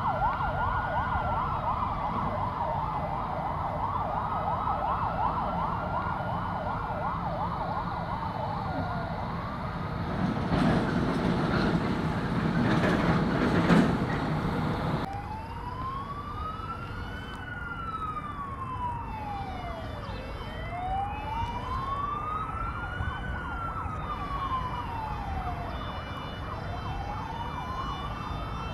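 Fire truck sirens. For the first nine seconds a siren warbles rapidly while sweeping up and down, then a loud rushing noise swells for about five seconds. After an abrupt cut, a slow wail rises and falls about every six seconds.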